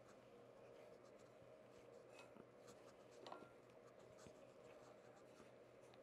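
Near silence: faint rubbing and small clicks of hands pressing pie crust dough together in a glass bowl, over a low steady room hum, with one slightly louder click about three seconds in.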